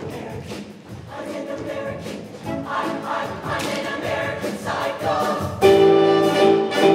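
Show choir singing over a live band, with sharp percussion hits keeping the beat; about five and a half seconds in the band comes in loudly with a held chord, brass to the fore.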